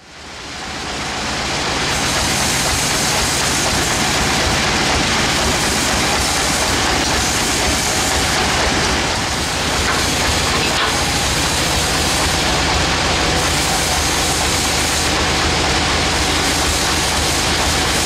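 Sawmill band saw and its drive engine running steadily, a constant mechanical noise with a low hum. It fades in over the first couple of seconds.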